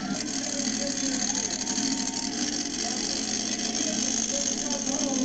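Monster truck engine at full throttle on a timed run across the dirt track: a loud, dense, steady racket that swells in right at the start.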